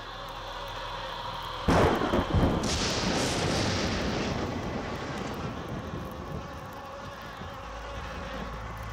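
A steady low hum, then a sudden loud crash about two seconds in with a second hit just after, followed by a rushing hiss that fades slowly.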